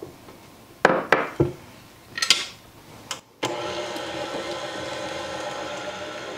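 A few sharp knocks, then about three and a half seconds in a KitchenAid tilt-head stand mixer starts up and runs steadily. Its paddle beater is creaming butter, sugar, eggs and vanilla into cookie dough.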